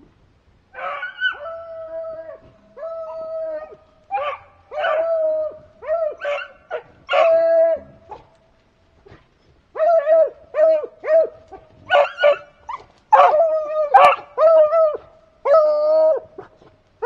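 Beagles baying on a rabbit's track: a run of drawn-out, ringing bawls one after another. They break off for a second or so in the middle, then pick up again.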